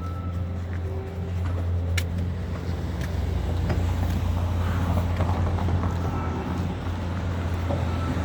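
Snow-removal vehicle's engine running with a steady low hum, with a faint high-pitched beep now and then.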